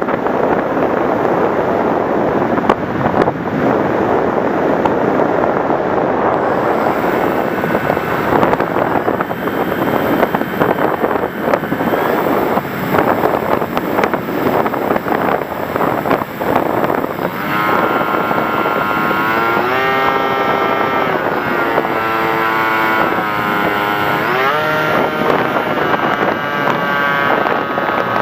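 Wind rush over a flying FPV Raptor model plane, joined about halfway through by the hum of its motor and propeller, whose pitch drops, rises and drops again as the throttle changes.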